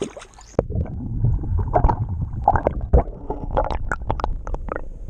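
Underwater sound of a stream heard by a submerged action camera: a muffled low rumble with gurgling and many sharp clicks and knocks, starting abruptly about half a second in as the camera goes under.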